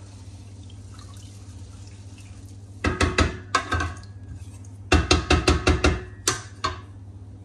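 Sharp clinks of a utensil against a pot, in two quick runs: a few strikes about three seconds in, then about seven in a second around five seconds in, with one more just after. Under them runs a steady low hum.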